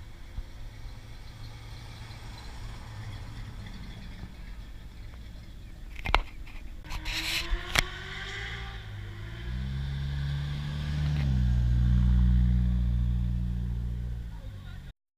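Car engines passing on the road, with two sharp clicks about six and eight seconds in. From about nine seconds a deep exhaust note grows loud as a car drives close by, peaking around twelve seconds.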